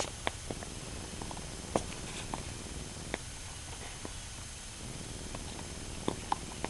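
Border collie chewing a catfish: scattered sharp crunches and clicks over a steady low background.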